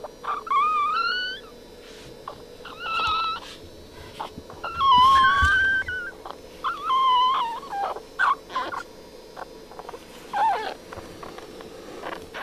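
Newborn Boston Terrier puppies crying: about half a dozen high, wavering squeals, the longest about a second, with small clicks between them. A faint steady hum runs underneath.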